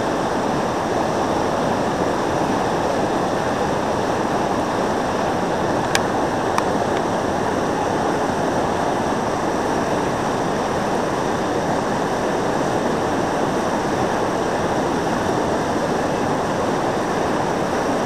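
Steady rushing of a Class III whitewater rapid, white water churning over a river ledge, with two faint brief clicks about six seconds in.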